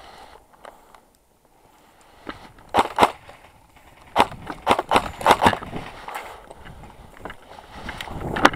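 Footsteps crunching over broken concrete and brick rubble, an irregular run of steps starting about two seconds in.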